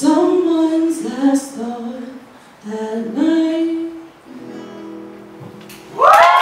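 A woman singing slow phrases of long, held notes with short pauses between them. About six seconds in, a sudden loud burst of audience cheering and whooping breaks out.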